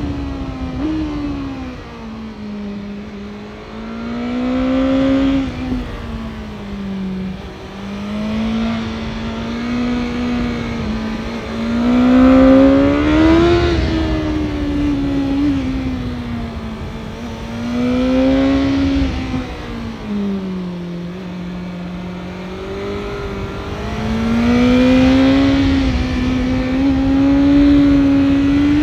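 Synthetic sport-motorcycle engine sound meant as a 2022 BMW S1000R with stock exhaust, its pitch rising and falling smoothly in several long swells as if the bike were accelerating and easing off. The loudest and highest surge comes near the middle.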